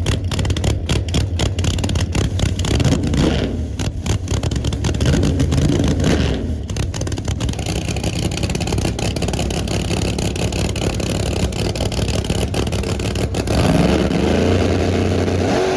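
Drag race car engine running with a rough, popping idle and revving up a few times, about three seconds in and again near the end, then cutting off suddenly.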